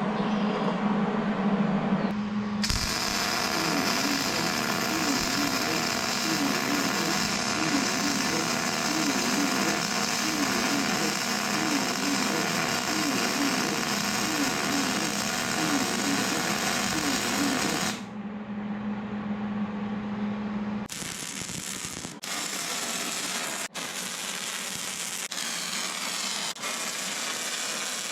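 MIG welder laying beads on steel. A steady hum runs throughout, with a long stretch of continuous arc crackle from about two seconds in. A pause of a few seconds follows with only the hum. Then the crackle resumes, more irregular, with sharp pops.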